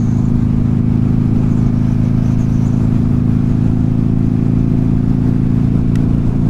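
Buell XB9R's air-cooled V-twin engine running at a steady cruising speed, heard from the rider's seat over the rush of riding wind.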